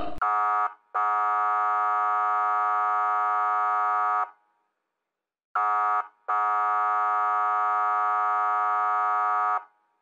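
Police vehicle horn sound effect: a short blast, then a long blast of about three seconds at one fixed, buzzy pitch, sounded twice with a pause between.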